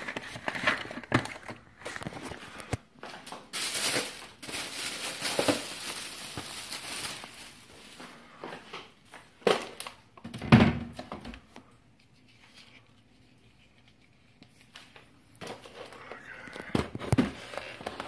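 Plastic grocery bags crinkling and packages and jars being handled and set down on a cupboard shelf, with scattered knocks and one louder thump about ten seconds in, then a few seconds of near quiet.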